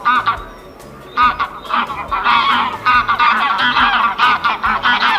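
Geese honking: one honk at the start, then from about a second in many overlapping honks from several birds without a break.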